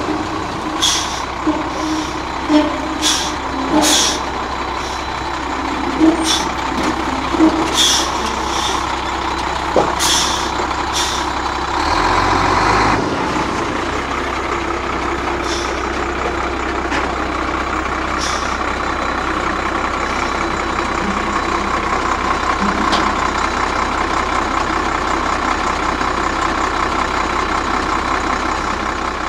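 Diesel engine of an American Eagle motorhome running steadily as the coach rolls slowly along railway flatcars, with a string of short sharp sounds over roughly the first eleven seconds and a louder stretch about twelve seconds in.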